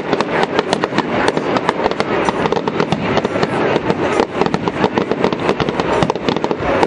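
Fireworks display: a dense, unbroken run of bangs and crackles, several every second.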